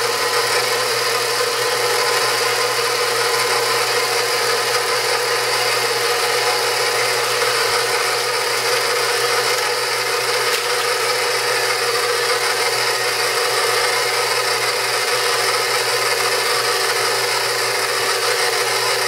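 KitchenAid stand mixer running steadily, its flat beater turning through batter in a stainless steel bowl.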